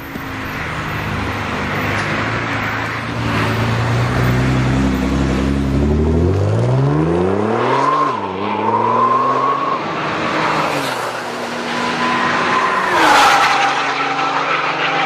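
Sports car engine running hard on a track, its pitch rising steeply through a hard acceleration about halfway through, with a high tyre squeal over it.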